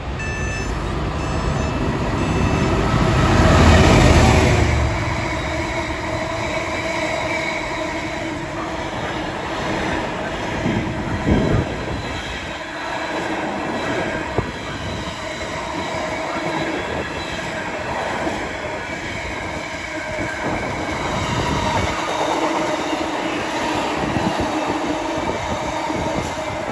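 Train running on the line, loudest about four seconds in, then a steady running noise with a faint hum underneath.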